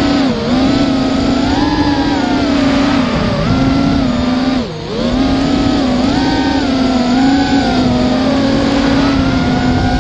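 Small FPV quadcopter's motors and propellers, picked up by its onboard camera: a steady hum with a higher whine that rises and falls as the throttle changes, dipping briefly in pitch and level a little before the middle.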